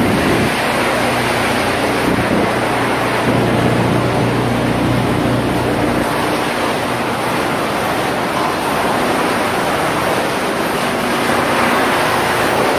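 Industrial wood chipper running: a loud, steady mechanical din with a droning hum that shifts in pitch now and then.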